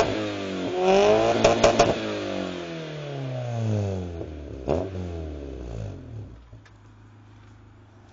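Honda Civic engine with a de-catted exhaust and a Tenzo air intake, revved once about a second in with sharp pops from the exhaust at the top of the rev. The revs then fall away over several seconds, with one more pop midway, and settle to a quieter idle near the end.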